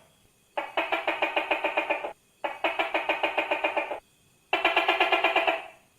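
Tokay gecko calling in three rapid rattling trills of about eight pulses a second, each lasting about a second and a half with short pauses between.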